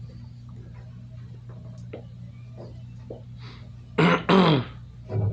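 A person's brief vocal noise: two quick sounds dropping in pitch about four seconds in, then a shorter one near the end, over a steady low hum.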